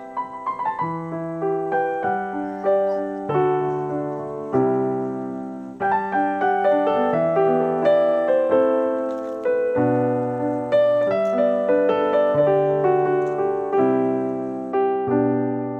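Background piano music: single notes struck and fading over a slow-moving bass line.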